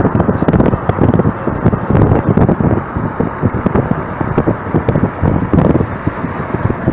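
Road noise from a vehicle travelling at highway speed, with wind buffeting the microphone in a loud, choppy rumble. Trucks run alongside in the traffic.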